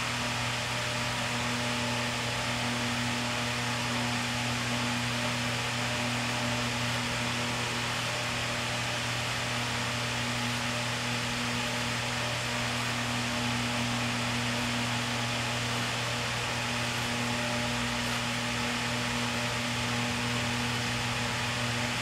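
Steady low mechanical hum with a constant hiss, unchanging throughout; no distinct clicks or scraping from the hand tap stand out.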